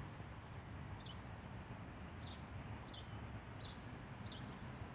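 A bird chirping faintly: about six short, high chirps, each dropping slightly in pitch, over a low steady background rumble.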